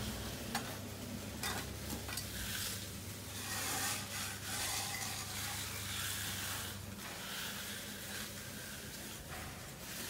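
Steel hand edger scraped along the edge of wet, freshly poured exposed-aggregate concrete against the form board: a gritty rasping hiss in uneven strokes, with a few light clicks. A low steady hum runs underneath and drops away about seven seconds in.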